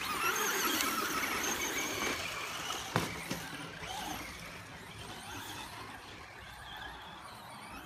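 Radio-controlled toy cars racing: a whining motor sound with tyre noise, loudest at the start and then fading as the cars move off, with one sharp knock about three seconds in.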